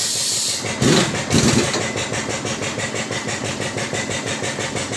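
Hydraulic power pack of a truck-tyre bead-breaker machine running with a steady, rhythmic pulsing as the ram lifts. A hiss cuts off about half a second in, and a few louder sounds follow around a second in.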